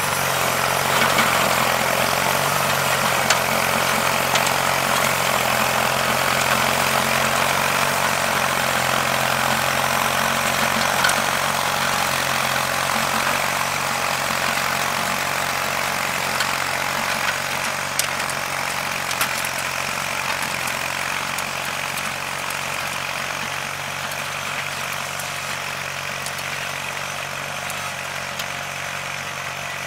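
John Deere 316 garden tractor's Onan B43 twin-cylinder engine running steadily while it drives a rear-mounted rototiller through sod, with a few sharp ticks. The sound gradually fades as the tractor moves away.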